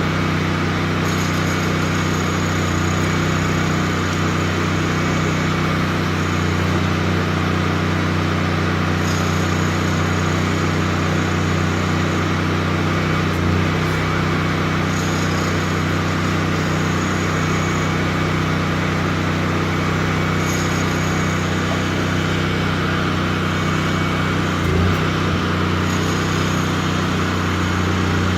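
An engine running steadily at one speed with a low drone. A faint high whine comes and goes every few seconds.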